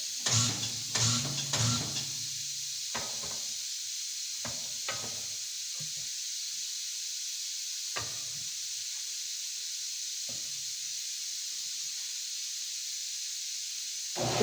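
Steady hiss of compressed air escaping from a leak in the air hose line, with a few knocks and clunks as the tire and wheel are moved, most of them in the first couple of seconds.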